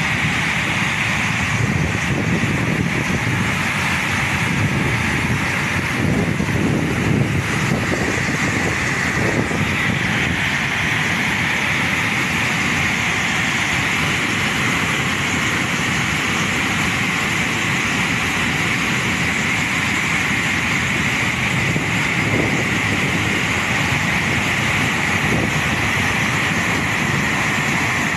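Muddy flash-flood torrent rushing past, a loud, steady rush of water.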